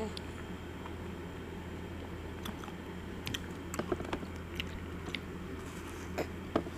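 Biting and chewing chocolate-coated almond ice cream bars: scattered crunches and small clicks, thickest in the second half, over a steady low hum.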